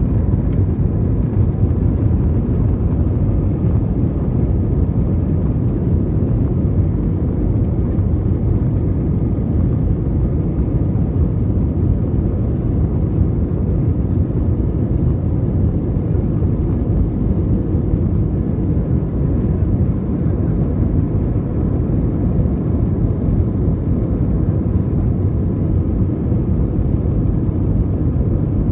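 Steady low rumble inside the cabin of an Airbus A321 taxiing, from its IAE V2500 engines at low thrust and the airframe rolling on the taxiway, with no spool-up.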